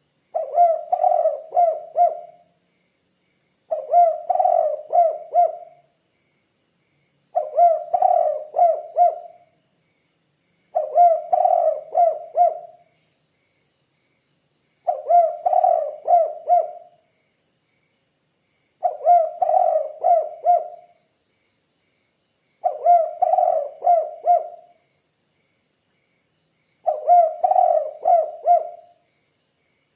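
Spotted dove cooing: a phrase of several coos about two seconds long, repeated about every four seconds, eight times.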